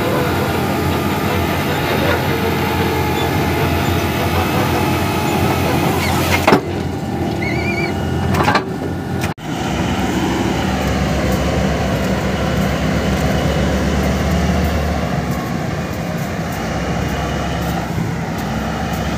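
Steady drone of a mining drill rig's engine and machinery. After a sudden cut about nine seconds in, a large mining dump truck's diesel engine runs with a low steady drone and a faint whine that slowly rises and falls.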